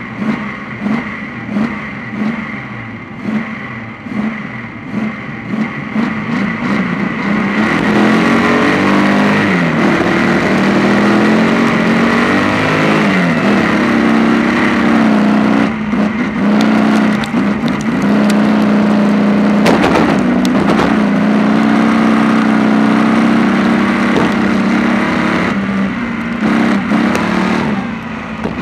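Speedway stockcar engine heard up close from an onboard camera on the car. At first it comes in short pulses of throttle. About seven seconds in it settles into a steady run at full throttle, its pitch dipping and recovering twice as the driver lifts for the corners, with a few sharp knocks around the middle before the pulsing returns near the end.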